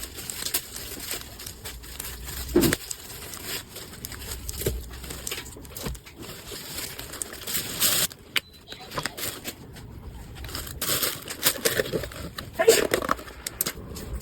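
Packaging being handled and opened: irregular crinkling, rustling and tearing, with scattered sharp clicks and knocks.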